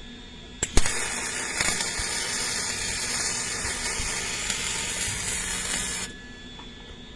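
Electric arc welder laying one weld on a steel joint: the arc strikes with a sharp crack about half a second in, runs as a steady crackling sizzle for about five seconds, then cuts off.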